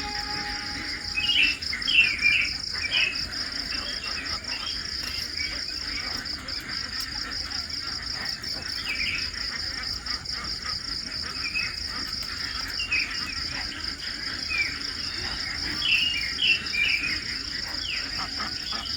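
Insects trill steadily in a high, pulsing chorus. Short high bird chirps come in little bursts over it, the loudest about two seconds in and again near the end.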